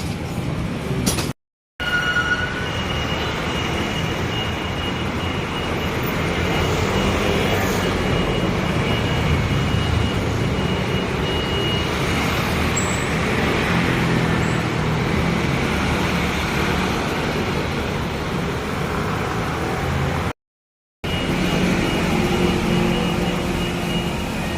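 Street traffic noise: a steady rumble of passing motor vehicles, broken twice by a brief cut to silence.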